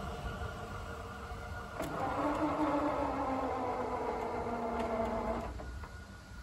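Level-crossing barrier drive motor whining as the boom arm lifts, starting with a click about two seconds in and cutting off suddenly about three and a half seconds later; its pitch sinks slightly as it runs.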